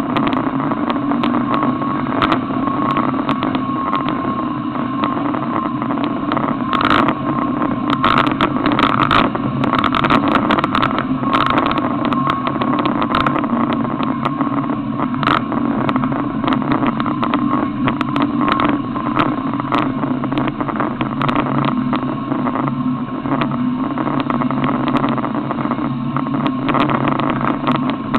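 A 4x4's engine running steadily as it drives over a rough forest dirt track, with many sharp knocks and rattles from the bumpy ride, thickest between about seven and fifteen seconds in.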